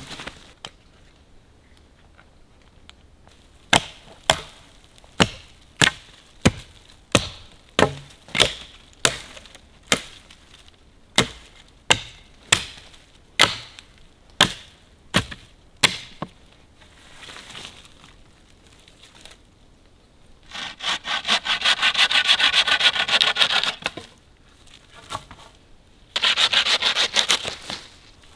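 A hatchet chopping into a green sapling: a run of sharp strikes, about one and a half a second. Then comes a saw cutting through wood in two bouts of fast strokes.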